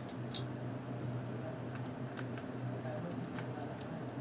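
Plastic building bricks clicking and tapping as they are handled and pressed onto a brick model, a few light clicks scattered through, over a steady low hum.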